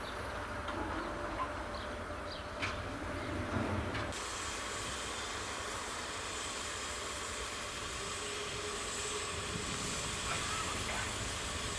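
Steam hissing from a Harz narrow-gauge 2-10-2T steam locomotive, 99 7240-7, with a low rumble and a few bird chirps. About four seconds in, the sound cuts to a steadier, brighter hiss.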